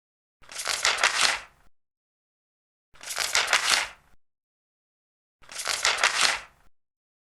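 Three turns of a large paper page, each a crackling, rustling sweep lasting just over a second, evenly spaced with silence between them.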